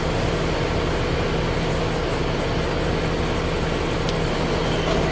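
Shop air compressor running steadily, mixed with the hum of the Kitamura MyCenter HX1000I's spindle turning at 1,000 RPM in low range. The sound is an even, unchanging machine hum with a few steady low tones.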